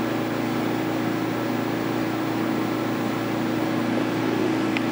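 Steady mechanical hum of fans and air handling with a low droning tone, around a semiconductor metrology tool running its stage calibration routine. There is a faint click near the end.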